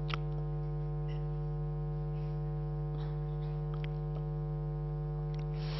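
Steady electrical mains hum in the microphone and amplification chain, a constant buzz with many even overtones, joined by a few faint clicks.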